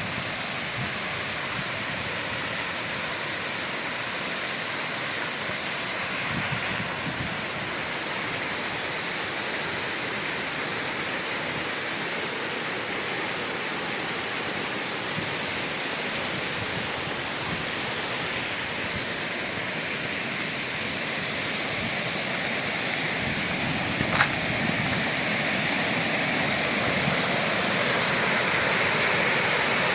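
Waterfall's falling water, a steady rushing noise that grows a little louder in the last third, with a single sharp click about two-thirds of the way through.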